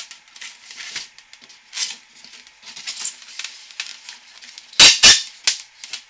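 Scraping and rubbing as a sheet of closed-cell foam and a minifridge's wire-and-tube condenser coil are handled and fitted together. Near the end come two sharp knocks in quick succession, the loudest sounds.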